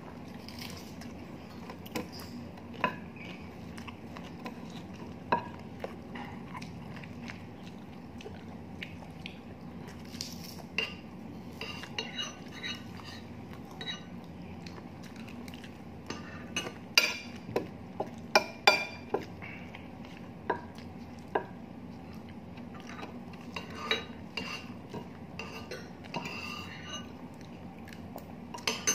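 Metal spoon and fork clinking and scraping against a plate as food is scooped up, in scattered clicks, with a run of sharper clinks a little past halfway.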